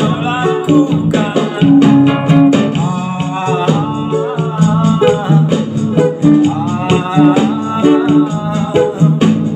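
A man singing to his own strummed acoustic guitar, the voice gliding between held notes over a steady strumming rhythm.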